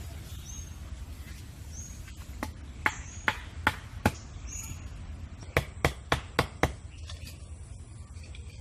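A series of sharp knocks: one at the start, then two runs of about five strikes each at roughly three a second, the first run a couple of seconds in and the second after a short pause.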